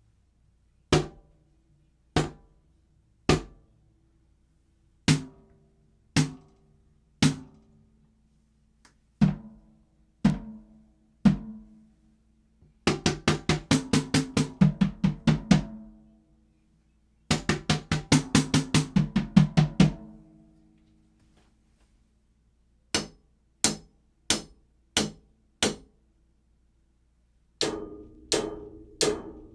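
Drum kit played: single drum strokes about a second apart, then two fast rolls of rapid strokes in the middle, then a few more single strokes and another fast run near the end.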